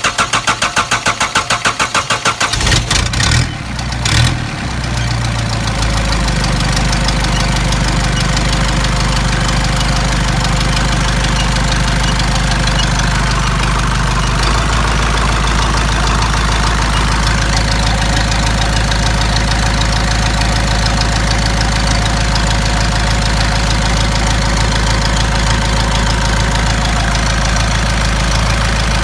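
Nissan Patrol GU's ZD30 3.0-litre four-cylinder diesel cranking on the starter in rapid even pulses for about two and a half seconds, then catching about four seconds in and settling into a steady idle.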